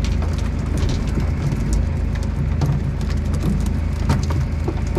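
A motor running with a steady low hum, under a constant noisy patter and scattered short clicks and knocks.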